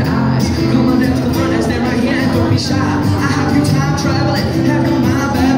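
Acoustic guitar strummed live, playing a run of chords.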